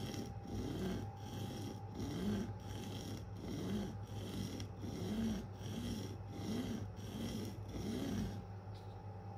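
K390 steel knife blade stroked back and forth across an Atoma 400 diamond sharpening plate, a rhythmic scraping rasp about once every 0.7 s, each stroke rising then falling in pitch. The strokes stop about 8.5 seconds in.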